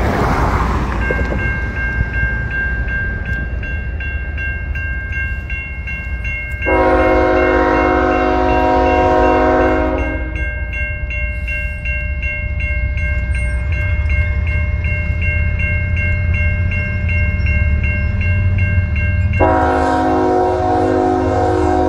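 The Nathan K5HL five-chime air horn on a CN GE ET44AC locomotive sounds one long blast of about three and a half seconds, then starts another near the end, over the steady ringing of a level-crossing warning bell. Under it the low rumble of the approaching locomotives grows.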